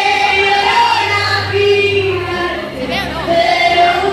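Live singing: a woman's voice through a PA microphone holds long, sliding notes, with many voices in the crowd singing along.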